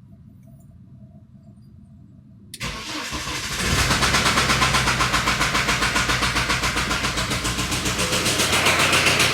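BMW N47D20 2.0-litre four-cylinder diesel engine starting about two and a half seconds in, then running steadily at idle with an even, rapid pulse. The knock in it is the fault being recorded.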